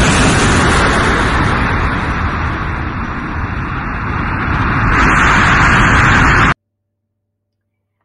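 Jet airliner landing on a runway: a loud, steady engine roar that eases slightly, swells again about five seconds in, and then cuts off suddenly.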